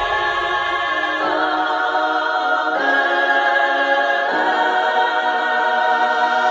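Background music: sustained chords that move to a new chord about every second and a half.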